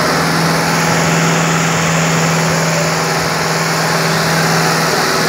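Kubota tractor's diesel engine running at a steady speed close by, with one constant low engine tone that holds without revving.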